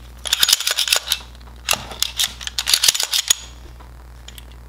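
Sharp plastic-and-metal clicks and clacks from handling a Glock 19 pistol and its magazine: a quick run of clicks just after the start, then a second, longer run, stopping about three and a half seconds in.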